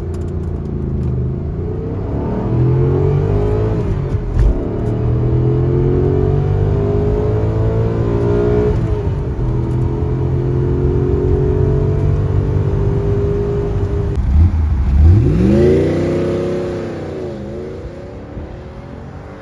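Lancia Thema 8.32's Ferrari-built 2.9-litre V8 accelerating through the gears, its note climbing and dropping back at upshifts about four and nine seconds in, then holding steady. Near the end the revs rise and fall once more and the engine sound fades away.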